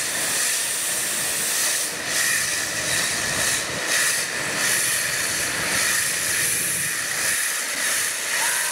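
LPG cylinders venting gas under pressure through their valves, the gas burning in tall jet flames: a steady, loud hissing rush.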